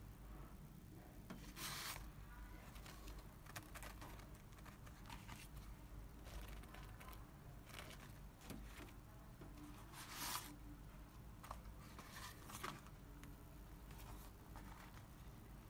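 Sheets of perforated PVC stretch-ceiling film handled and flexed by hand: faint plastic crinkling and rustling in short bursts, the loudest about two seconds in and about ten seconds in, over a steady low hum.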